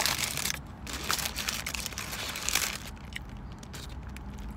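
Paper burger wrapper crinkling and rustling as hands fold and crumple it, in irregular bursts for the first two and a half seconds, then softer.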